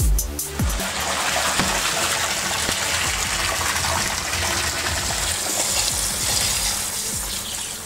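Water gushing from a large corrugated hose into a pool of water rising against a door, a steady rushing and splashing.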